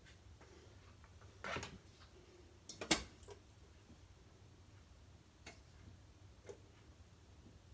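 A few scattered light clicks and knocks of kitchen handling, pots and dishes being touched: a short scrape about one and a half seconds in, a sharper click near three seconds, and two faint ticks later. A faint low hum lies underneath.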